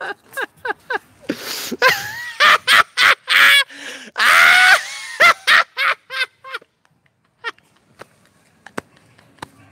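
A man laughing hard: quick ha-ha pulses, then loud breathy gasps and high, gliding shrieks of laughter about four to five seconds in. The laughter dies away about two-thirds of the way through, leaving only a few faint clicks.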